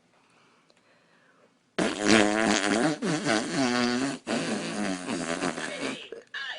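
A long, loud fart of about four seconds, starting about two seconds in. Its pitch wavers throughout, with a brief break a little past the middle.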